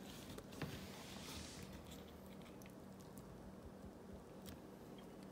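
Near silence: faint room tone with a few soft clicks and taps of a metal knife against a metal pie pan as a slice of pecan pie is lifted out.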